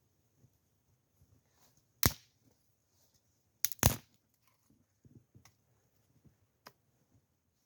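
Three sharp cracks, one about two seconds in and two close together nearly two seconds later, with faint clicks and rustling in between.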